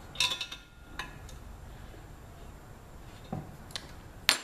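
A few metallic clinks and taps of a wrench on steel bolts and drill-press parts during assembly, with the sharpest click near the end.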